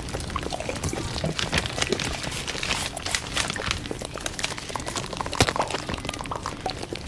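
Paper crinkling and crackling as a homemade paper blind bag is handled and folded, a quick irregular run of sharp crackles.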